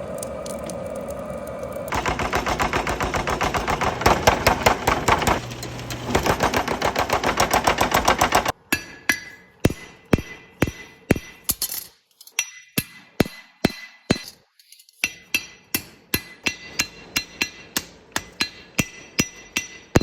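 Hammer blows on hot leaf-spring steel on an anvil. After about two seconds of steady noise, a fast run of blows, about five a second, lasts until past the middle. Then come slower single strikes, about two a second, each with a short metallic ring.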